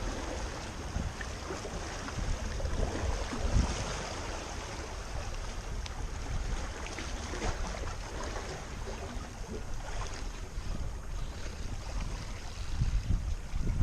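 Wind gusting over the microphone with the wash of sea waves.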